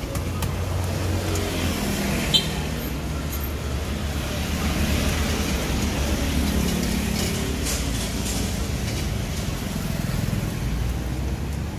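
Road traffic: vehicle engines running and passing close by in a steady low rumble. There is a single sharp click about two and a half seconds in.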